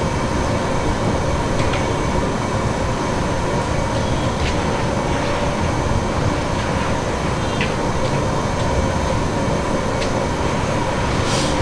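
Steady roar of a gas burner firing under a large biryani pot, with a few faint light taps as rice is shaken from a metal mesh strainer onto the layer below.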